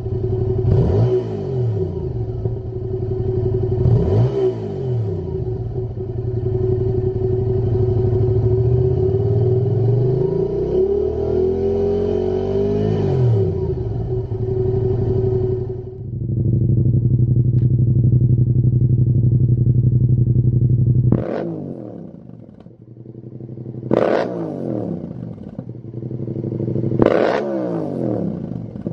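Yamaha MT-07's parallel-twin engine running stationary, first through the stock exhaust with a couple of quick throttle blips and one slower rev up and down. About halfway through, it switches to the Lextek GP8C carbon aftermarket silencer: a steady idle, then three sharp throttle blips about three seconds apart.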